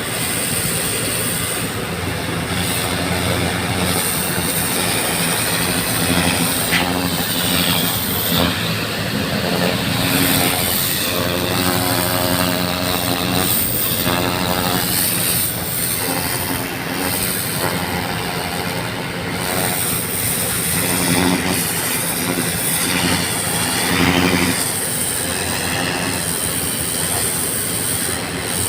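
A pump engine running steadily under the loud hiss of a high-pressure hose spraying water onto pavement during street flushing.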